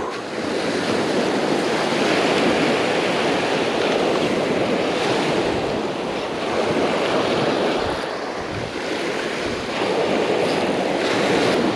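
Ocean surf breaking and washing up on a beach, swelling and easing as the waves come in, with wind buffeting the microphone.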